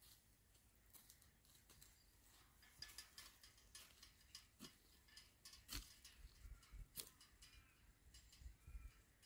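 Near silence with faint, scattered clicks and light ticks, a few faint low thuds among them in the second half.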